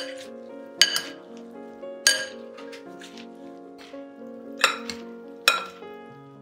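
Metal utensils clinking against a glass bowl while tossing a chopped salad: about half a dozen sharp, irregular clinks, with background music throughout.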